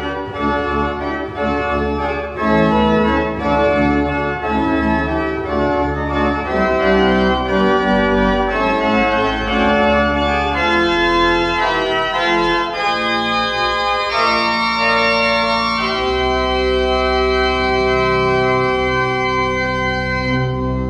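Church pipe organ playing slow sustained chords over a deep pedal bass, the chords changing every second or so, then one chord held for about the last five seconds.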